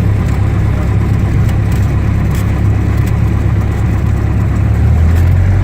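Single-engine Cessna's piston engine running steadily, its low drone shifting slightly about five seconds in.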